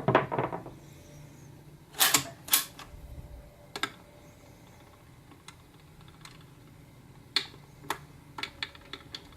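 Plastic and metal clicks and clacks from a Panasonic SD-85 turntable's controls and mechanism being worked by hand: two loud clicks about two seconds in, then scattered lighter clicks and a quick run of small ones near the end. The turntable is failing to start playing.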